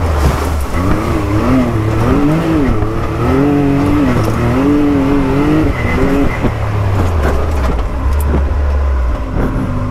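Can-Am Maverick X3's turbocharged three-cylinder engine driven hard, its pitch rising and falling again and again as the throttle goes on and off, heard from the cockpit.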